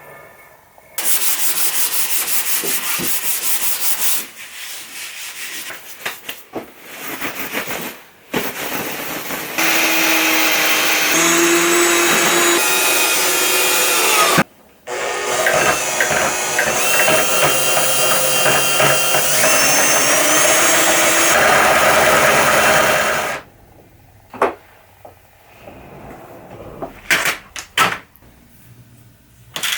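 A power tool running in three stretches: about three seconds near the start, then about five seconds, and after a short break about eight seconds. Its motor pitch shifts up and down with the load while it works.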